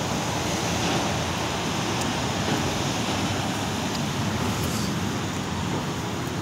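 Steady rumble and hiss of vehicle and traffic noise, with no single event standing out.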